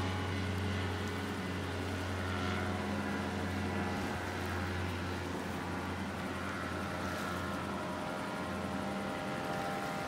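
Powered paraglider's small engine buzzing steadily as it flies, a snowmobile-like drone, over the rush of a fast river.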